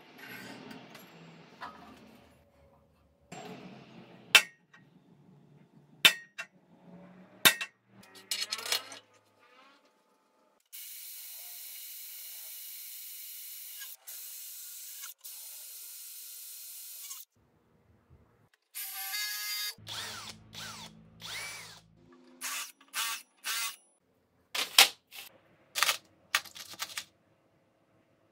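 A cordless drill boring through a sheet-metal disc, running steadily for about six seconds with two brief pauses. Several sharp metal knocks and clinks come before and after it, the loudest sounds in the stretch.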